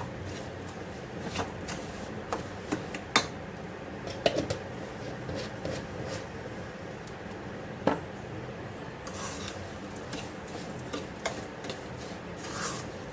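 A spatula stirring and scraping ginger being roasted in a pan on the stove, with a few sharp knocks of the spatula against the pan over a steady low hiss.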